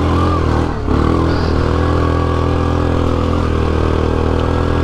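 ATV engine running at steady revs, dipping briefly just under a second in and then picking up again.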